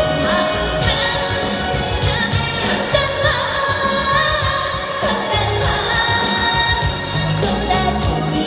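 A woman singing a trot song live over an amplified backing track with a steady beat.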